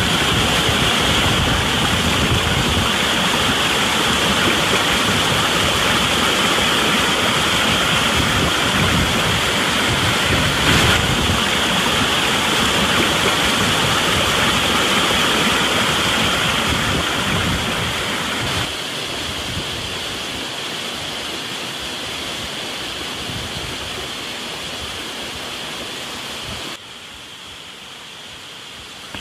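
Small forest waterfall: water pouring and splashing steadily. The sound drops abruptly to a quieter level about two-thirds of the way through, and again near the end.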